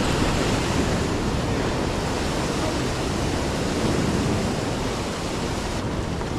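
Ocean swell breaking against a rock ledge and washing off it as white water, a steady loud rushing.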